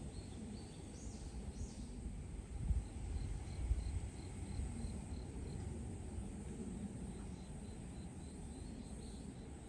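Outdoor summer ambience: short high chirps repeating evenly about three times a second, in two runs, with a couple of brief higher calls near the start. Underneath, a low rumble of wind on the microphone with two soft bumps a few seconds in.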